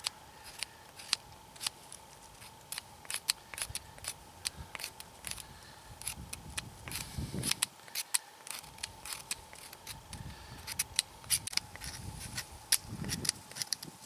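Knife blade scraping a stick of resinous fatwood to raise fine curled shavings for tinder: a quick, irregular series of short scratchy strokes, a few a second.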